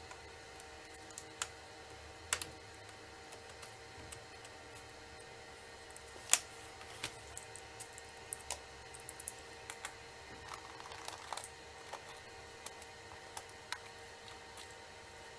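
Scattered light clicks and taps of laptop parts and small tools being handled during a hard drive swap, some in quick clusters, the sharpest about six seconds in, over a faint steady hum.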